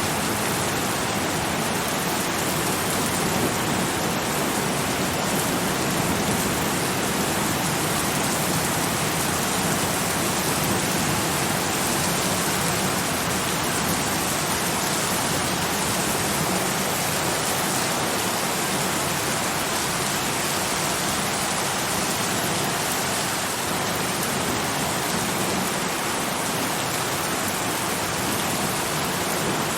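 Steady, heavy rain: a dense, even hiss of falling rain with no distinct drops or thunder standing out.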